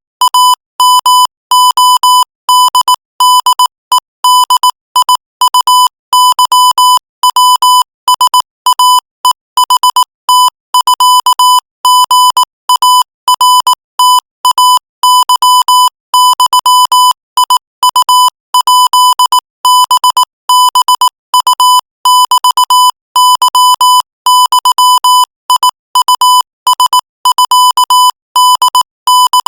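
Morse code sent as a single steady beeping tone, keyed on and off in rapid dots and dashes at 22 words per minute.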